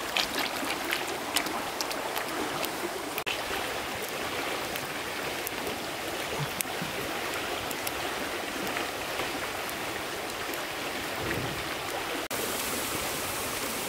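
Steady rush of running water, like a stream, with a few faint clicks.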